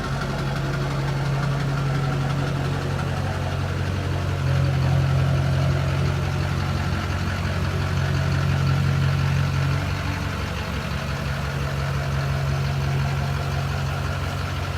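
Diesel pickup engine running steadily with a low hum, a little louder from about four seconds in until near ten seconds.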